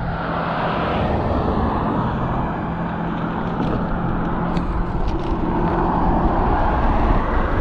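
Road traffic noise: a car's low hum and tyre rush, growing slowly louder.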